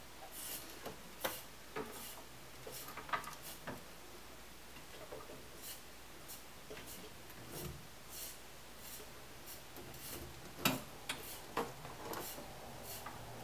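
Irregular light clicks and taps with some rubbing, as of hand work with tools or parts, under a low steady room hum; one sharper click about two-thirds of the way through.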